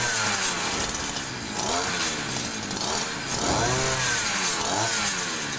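Small two-stroke engine of a 56cc petrol earth auger (hole digger) running and being revved up and back down with the throttle, its pitch rising and falling about three times.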